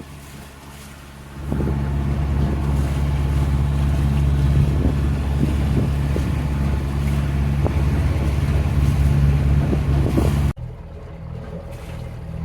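Sailboat's engine running steadily while motoring, a low even hum with wind noise on the microphone. It swells about a second and a half in and drops off abruptly near the end to a quieter background.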